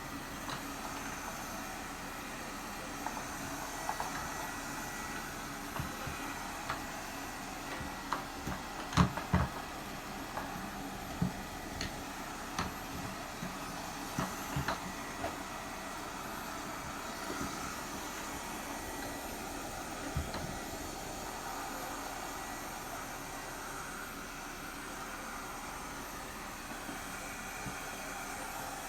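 Robot vacuum cleaner running with a steady whir, with scattered short knocks and clicks over it, most of them between about eight and fifteen seconds in.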